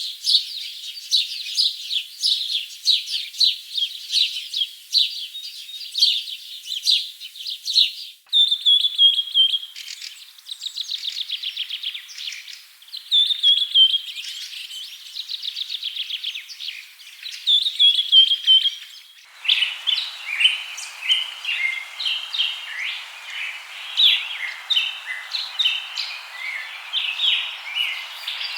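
Birds chirping and singing, in three recordings joined one after another. First come rapid chirps, then short falling trills repeated every few seconds from about eight seconds in, then busier chirping over a steady hiss from about nineteen seconds in.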